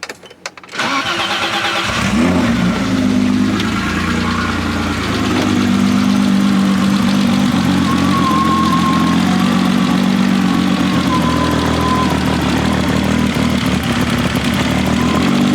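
1986 BMW E30 325i's M20 straight-six starting under a second in, rising briefly in pitch and then idling steadily. It runs a little loud, with no muffler fitted.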